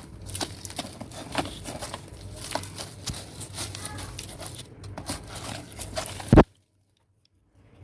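Kitchen knife stabbing and scraping into hard, dry soil in a sack container: an irregular run of scrapes, crackles and small knocks. One loud knock comes about six seconds in, and then the sound cuts off suddenly.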